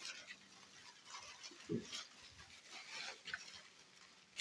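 Piglets in a pen giving a few faint, short grunts, with light scuffling in the wood shavings.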